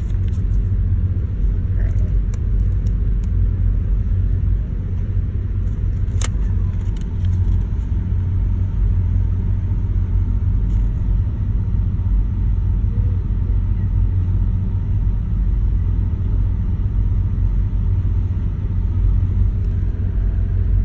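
Steady low rumble inside a car's cabin, with a few brief clicks about two and six seconds in.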